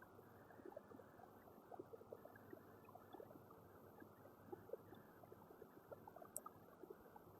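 Near silence: a faint steady hiss with scattered soft crackles and one faint tick about six seconds in.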